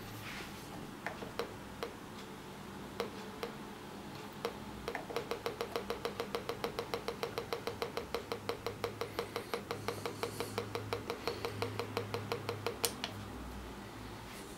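Pulse-induction metal detector's control box giving a fast, even run of short electronic ticks for about eight seconds, after a few scattered clicks.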